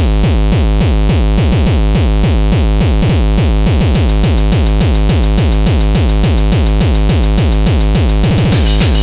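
Hard electronic dance music: a fast, heavy distorted kick drum whose pitch falls on every hit, over synths, with a quick kick-drum roll about eight seconds in.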